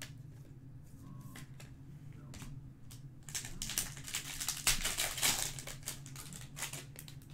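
A few light clicks, then from about three seconds in the crinkling and tearing of a foil trading-card pack wrapper being ripped open by hand, loudest around five seconds in.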